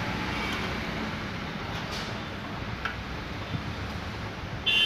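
Steady background rumble of road traffic, with a few faint clicks as a screw on a pedestal fan's motor shaft is tightened. A crow caws loudly near the end.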